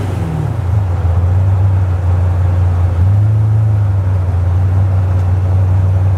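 The naturally aspirated 7.0L LS7 V8 of a 1967 Chevy C-10 restomod cruising at light throttle, a deep, steady exhaust drone. The revs rise briefly about three seconds in, then settle back.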